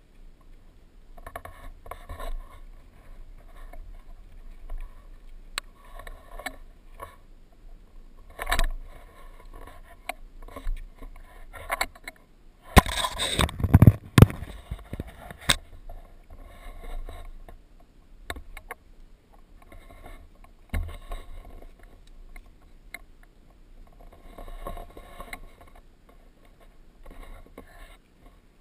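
Scrambling up a rocky slope: irregular scrapes, scuffs and knocks of boots and hands on rock, with rustling of clothing and gear close to the camera. The loudest is a dense cluster of scraping and knocks about halfway through.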